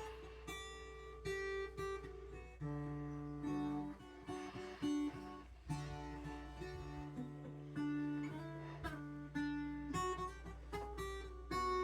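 Acoustic guitar music: plucked notes and strummed chords, each held for a second or so.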